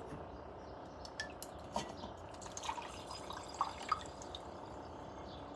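Goat milk being poured from a small jar into a quart jar, ending in a few faint, separate drips.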